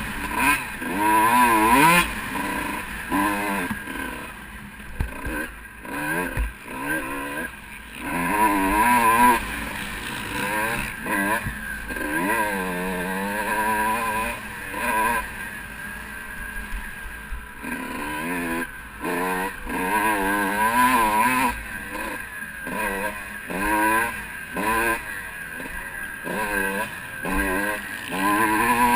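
Kawasaki KX125 two-stroke single-cylinder motocross engine revving hard and easing off again and again while being ridden, its pitch climbing in repeated sweeps and dropping back every second or two.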